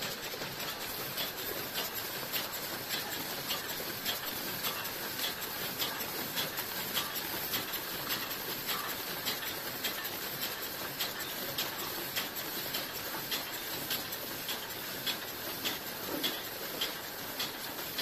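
GSF 1100 folder gluer running six-corner boxes: a steady mechanical hiss with regular clicks about three times a second.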